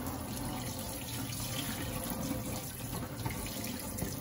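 Kitchen tap running steadily into a stainless steel sink, the stream splashing over a fish being rinsed by hand.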